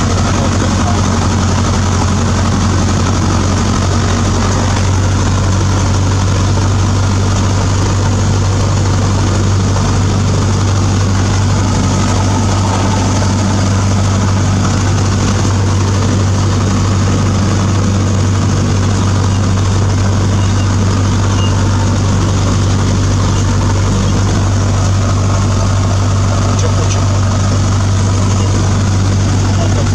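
Cessna 152's four-cylinder Lycoming piston engine and propeller running steadily at low taxiing power, heard inside the cockpit as a loud, even hum.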